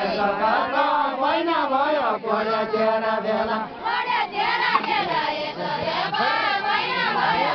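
Group of voices singing a Nepali deuda folk song together in chorus, many voices overlapping on a drawn-out, wavering melody.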